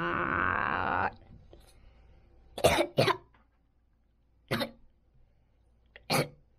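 A child's drawn-out rasping vocal sound that stops about a second in, then four short coughs, the first two in quick succession.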